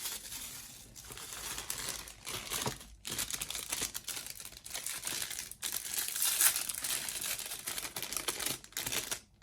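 Packaging crinkling and rustling as a scale-model wheel set is handled and unwrapped, with brief pauses about 3 and 5.5 seconds in.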